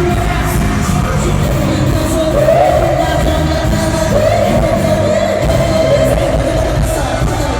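Live amplified pop music in a concert hall, with heavy bass and a voice singing. The voice holds two long notes, one about two seconds in and a longer one about four seconds in.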